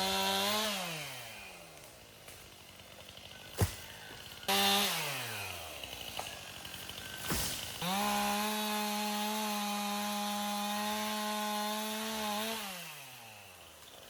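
Chainsaw triggered three times: two brief runs, then held at a steady high speed for about four and a half seconds. Each time the pitch falls away as it spins down. Two sharp knocks come between the runs.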